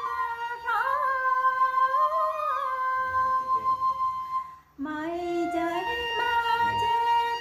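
A woman singing a Tày–Nùng sli folk song in long, held, wavering notes with music behind her. Everything stops for a moment about two-thirds of the way through, then her line starts again lower.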